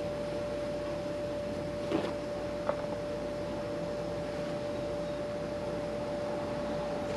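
A steady machine hum carrying one constant mid-pitched tone, with two short light knocks about two seconds in, less than a second apart.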